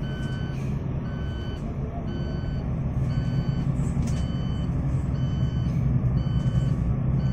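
Airport ground vehicle's reversing alarm beeping about once a second, each beep about half a second long, over a steady low engine drone.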